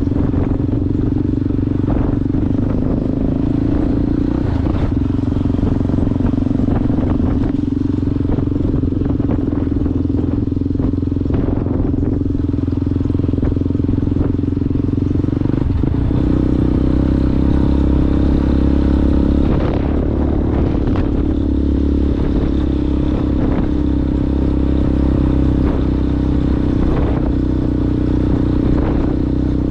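Yamaha Ténéré motorcycle with a Coyote aftermarket exhaust running under way off road, its engine note steady and changing about halfway through. Scattered knocks and clatter from the rough track run through it.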